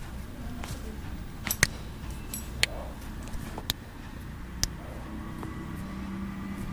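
About five sharp cracks, spaced roughly a second apart, with two close together near the start and the loudest among them: joints popping under a chiropractic adjustment. A steady low hum runs underneath.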